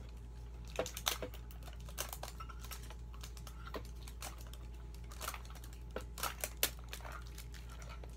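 Irregular plastic clicks and taps from fingers working at a plastic Poké Ball container to pry it open.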